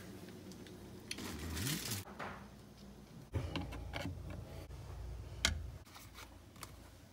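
Faint scattered clicks and knocks of hand tools and parts being handled while a garbage disposer is fitted under a sink, with a brief rustle and a rising scrape a second or two in and a sharper click about five and a half seconds in.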